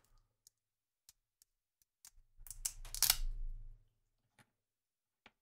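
Light clicks and ticks of a small resin-printed die and its plastic supports being turned over in nitrile-gloved fingers, with a louder flurry of clicks and rustling about two and a half seconds in.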